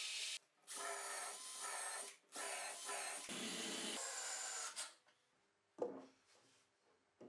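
A drill in a drill stand boring into a plywood block, cut off about half a second in. Then a cordless drill-driver whirrs in a few runs, pitch wavering with the trigger, as it drives screws into the block. A single sharp knock comes near the end.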